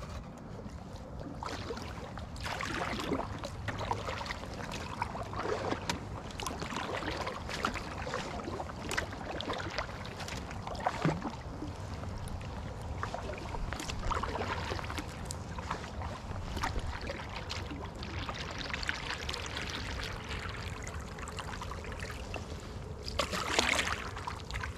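Canoe paddle strokes in calm water: repeated splashes and trickling drips off the blade, with small sharp knocks scattered throughout and a louder splashing surge near the end.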